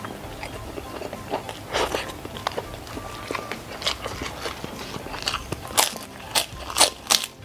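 Close-miked chewing of a mouthful of rice and mini sausages, with wet lip smacks and mouth clicks. Several sharper smacks come close together near the end.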